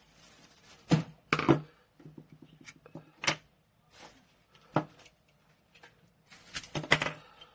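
Small metal parts of an air solenoid valve being handled and set down: scattered sharp clicks and knocks, about five, the loudest about a second in, a second and a half in and near the end.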